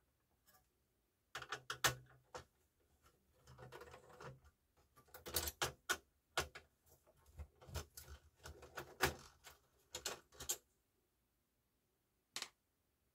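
Screws being backed out of the sheet-metal disc clamp bracket of a Yamaha CDC-625 CD changer with a hand screwdriver: an irregular run of small metallic clicks and clatters starting about a second in, then a single click near the end.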